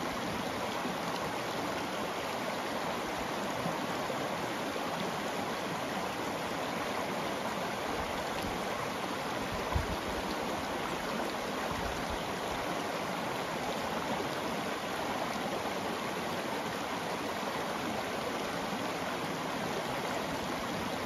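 Shallow river water rushing steadily over stones and gravel in a riffle, with one brief low thump about halfway through.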